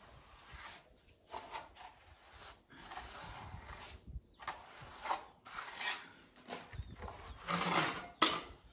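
Steel trowel scraping and smoothing wet cement mortar on a wall, in irregular strokes, with a louder, longer scrape and a sharp knock near the end.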